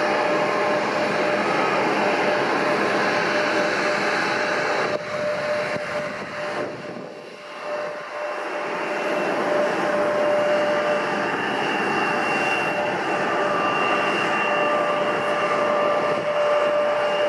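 Jet airliner engines running at high power: a loud steady rush with a high whine over it. It dips about seven seconds in and comes back up.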